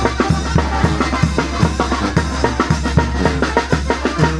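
Band music with a steady drum beat: bass drum and snare strokes a few times a second over a held low bass.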